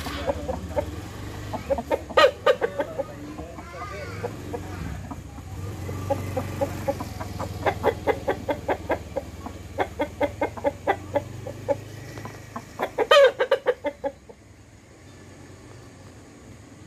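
Chickens clucking in runs of short, rapid clucks, a few per second. The runs are loudest about two seconds in and again about thirteen seconds in, and the clucking stops about fourteen seconds in.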